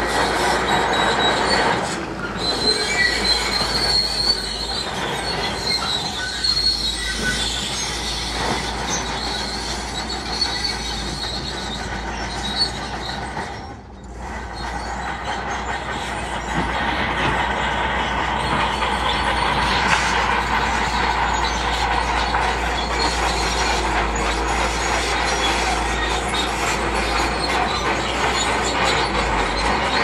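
Crawler bulldozer working, its diesel engine running under load with the steel tracks clanking and squealing. A high squeal stands out in the first few seconds. The sound dips briefly about halfway through, then carries on.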